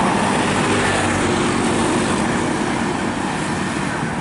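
Intercity bus going by at close range, its engine and tyre noise loudest at the start and slowly fading as it pulls away.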